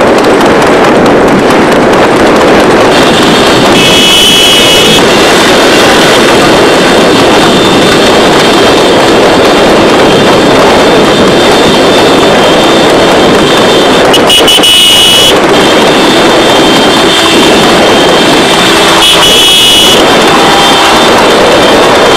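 Loud, continuous rushing noise of a horse-drawn tanga racing at speed, with wind on the microphone and road noise. High horn tones sound briefly three times: a few seconds in, about two thirds through, and near the end.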